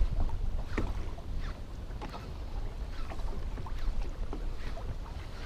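Small waves lapping and slapping irregularly against the hull of a small boat on choppy water, with wind rumbling on the microphone.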